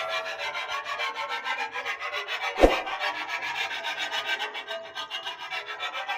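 Motor-driven chaff cutter running, its rotating cutter making an even, rhythmic rasping scrape several times a second. A single sharp knock sounds about two and a half seconds in.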